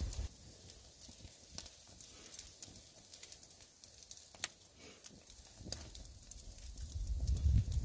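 Steak sizzling on a wire grill grate over a wood campfire, with the fire crackling: a steady hiss with scattered sharp pops. A low rumble comes in near the end.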